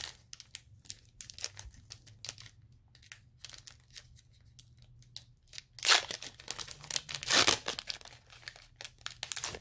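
Foil wrapper of a Pokémon trading card booster pack crinkling in the hands, then torn open with two loud rips about six and seven and a half seconds in.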